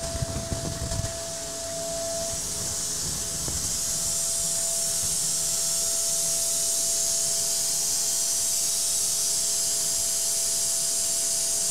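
DATRON Neo CNC milling machine finishing a metal gear selector shank in simultaneous 4th-axis milling: a steady high hiss from the spindle and cutting, with a steady mid-pitched tone through it. A few low knocks in the first second, and the hiss grows a little louder over the first few seconds.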